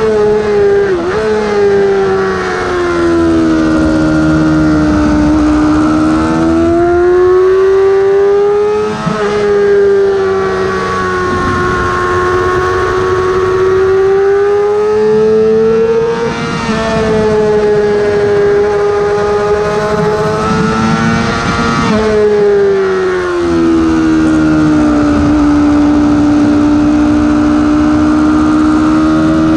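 Yamaha YZF-R6's inline-four engine heard from onboard at racing revs. The pitch falls through downshifts under hard braking over the first few seconds. It then rises and falls as the bike is worked through corners in third gear, with a sharp drop about nine seconds in and another near two-thirds of the way through, and runs steady near the end.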